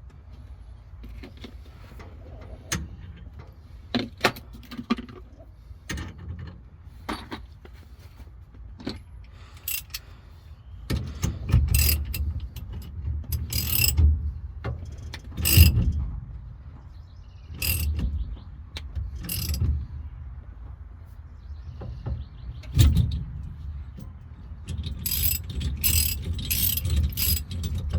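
Metal tools clicking and clanking as a steering wheel puller's centre bolt is turned to draw the steering wheel off its shaft, with a quick run of ratchet-like clicks near the end.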